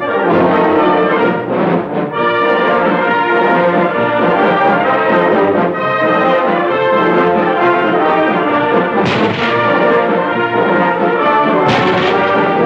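Orchestral title music with brass, loud and continuous, with a bright accent about nine seconds in and another near the end.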